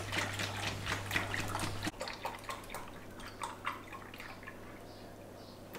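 Milk poured from a plastic jug into a measuring jug: a steady splashing stream for about the first two seconds, then quieter, with scattered drips and dribbles.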